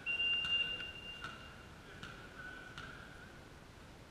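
A whistle blows one steady high note that starts suddenly and fades out after about a second and a half, most likely the referee's whistle in a volleyball match. Faint knocks come at even spacing, about one every three-quarters of a second, with echoing sports-hall background noise.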